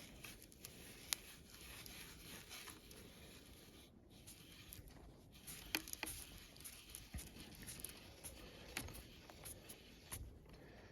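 Faint scraping with scattered small clicks as a 31/64-inch bit cuts a hole through the wall of plastic maple-sap tubing.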